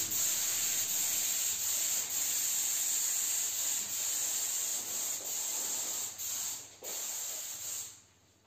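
Hand tool scraping over a plaster bas-relief, a steady scraping hiss with a couple of short breaks near the end before it stops suddenly.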